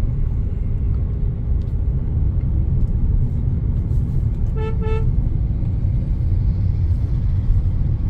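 Steady low road and engine rumble inside the cabin of a moving Hyundai i20, with a vehicle horn sounding briefly about four and a half seconds in.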